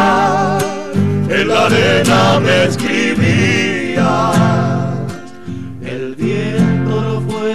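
Male voices singing with vibrato over two strummed acoustic guitars, in Argentine folk style. The singing drops out briefly past the middle, leaving the guitars, then comes back.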